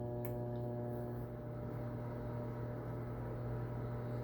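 Microwave oven running with a steady hum, heating a smooth oval of aluminium foil that is not arcing: no crackle or sparking, only the even hum and a single light click near the start.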